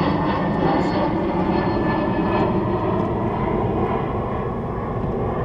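Steady, loud rushing rumble of an aircraft passing, easing off a little in the second half.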